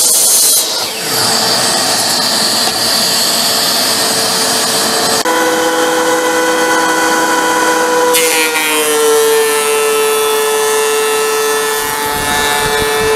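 DeWalt miter saw cutting through a cedar board, followed about five seconds in by a DeWalt three-knife thickness planer running steadily. The planer's pitch drops a little about eight seconds in as the board feeds through under load.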